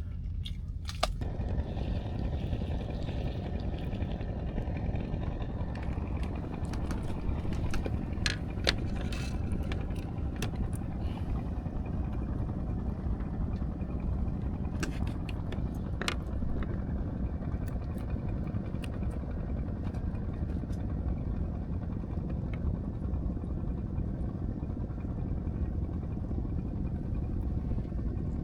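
An engine running with a steady low rumble, with a few light clicks and knocks about eight seconds in and again around fifteen seconds.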